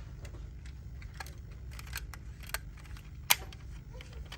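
Scattered light clicks and taps of a die-cast toy car being handled, over a steady low hum; the sharpest click comes a little over three seconds in.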